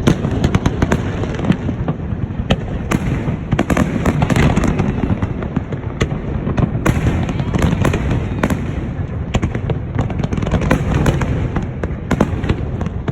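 Fireworks display going off in quick succession: many sharp bangs and crackles over a continuous low rumble.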